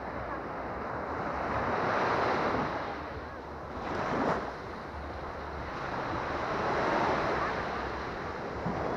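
Small Baltic Sea waves breaking and washing up the sand at the water's edge, the rush swelling and ebbing every two to three seconds, with a brief sharper splash about four seconds in.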